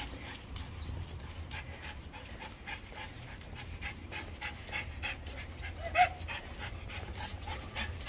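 Dog panting rapidly as it walks on a leash, a quick regular rhythm of breaths, with one brief louder pitched sound about six seconds in.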